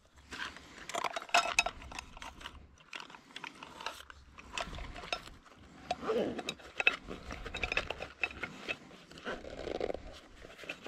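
Close-up handling of a leather pouch: rustling and scattered sharp clicks and taps as it is opened, a small tin is handled inside it, and it is folded shut.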